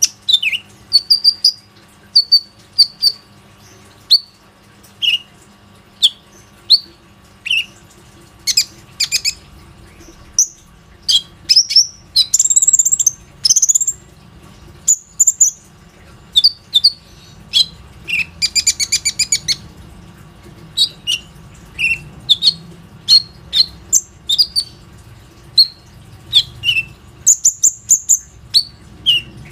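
Male kolibri ninja (purple-throated sunbird) singing on and on in lively, in-form song: a long string of short, high, sharp chirps and twitters. A buzzy, very high passage comes before the middle, and a fast trill of rapidly repeated notes comes past the middle.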